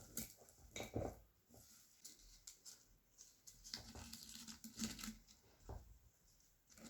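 Scattered light clicks, knocks and rustling of food preparation: hands handling ingredients and utensils, with a few sharper knocks, the loudest about a second in.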